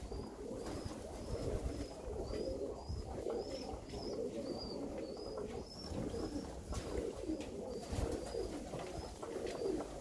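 A flock of Alföldi-Körösi tumbler pigeons cooing over one another, a low steady warble of many birds at once. A short high chirp repeats about twice a second over it.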